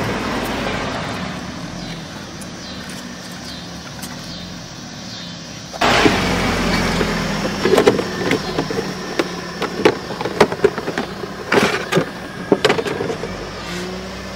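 Hands working the plastic air filter housing of an Audi A5 and lifting out the old cylindrical air filter: a run of short plastic clicks and knocks from about eight seconds on, over a steady rushing background noise that jumps up suddenly about six seconds in.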